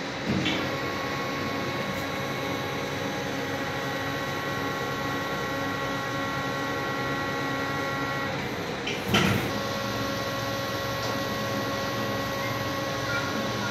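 Electronica 120-ton plastic injection moulding machine running: a steady mechanical hum with a whine of several steady tones that shift in pitch as the machine moves between stages of its cycle. A short, loud clunk comes about nine seconds in.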